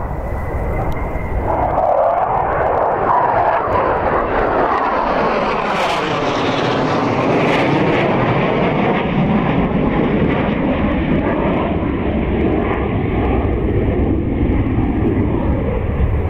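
A pair of MiG-29 jet fighters flying a display pass, their twin Klimov RD-33 turbofans giving loud, continuous jet noise. Midway through, the sound takes on a sweeping, phasing shift in pitch as they pass.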